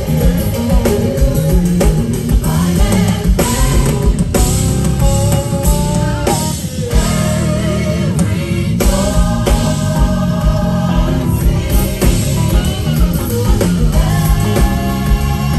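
Live band playing loud gospel music, with drum kit, bass and electric guitar.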